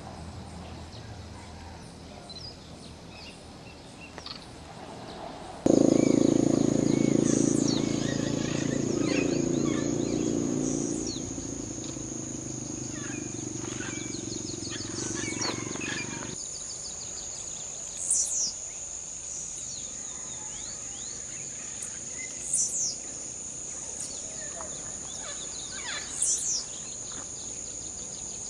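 Rainforest sounds: for about ten seconds a loud, deep roaring chorus of howler monkeys starts and stops abruptly. Over it runs a steady high insect drone, and a bird gives three sharp falling whistles in the later part.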